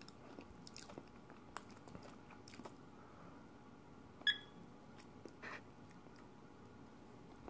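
Faint chewing of a Paqui One Chip Challenge chip, a scatter of short wet clicks that thin out after the first few seconds. A little past halfway, a single short electronic beep from a digital timer's button, the loudest sound.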